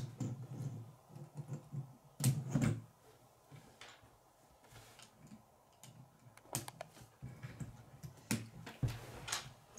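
K'nex plastic rods and connectors clicking as they are snapped together and handled, with the model knocking on a wooden table. Scattered sharp clicks, the loudest pair about two and a half seconds in.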